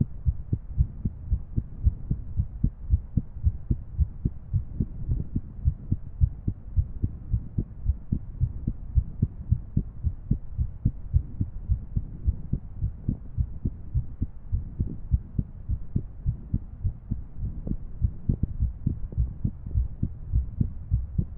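A woman's heartbeat recorded close at the chest: low, muffled thumps, about three a second, unevenly spaced, in an irregular rhythm.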